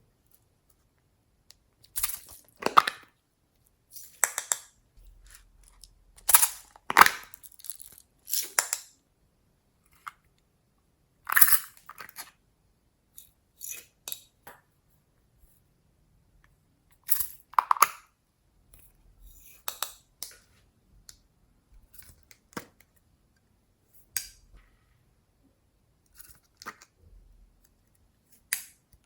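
Slime being squished and pressed by hand, in about a dozen short, irregular bursts with silent gaps between.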